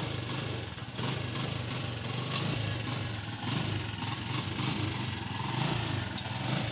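Small petrol engine of a homemade motor tricycle idling steadily.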